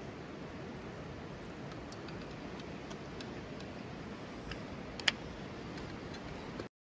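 Kindling and split firewood catching in a small fire pit, crackling with scattered sharp ticks over a steady low rush, and one louder pop about five seconds in. The sound cuts off abruptly near the end.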